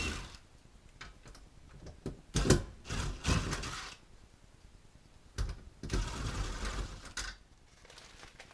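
Power drill running in two short bursts, backing out the screws that hold an RV window frame.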